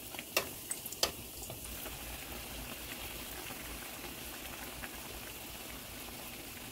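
Rounds of fry-bake dough deep-frying in hot oil: a steady, even sizzling and bubbling. Two sharp clicks come in the first second or so.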